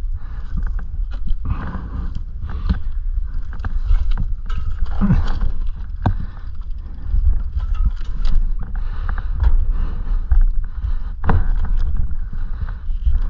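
Mountain bike and rider forcing through dense brush: branches scraping and snapping, with frequent clicks and knocks from the bike, over a steady low rumble on the microphone.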